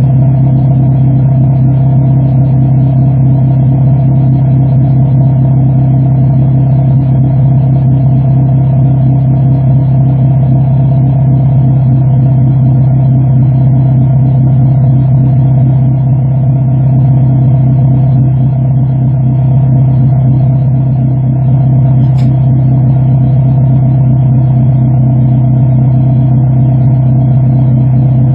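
2006 Honda Civic Si's K20 four-cylinder engine idling steadily through a DNA Motoring full-race catback exhaust, a loud, even rumble from the tailpipe.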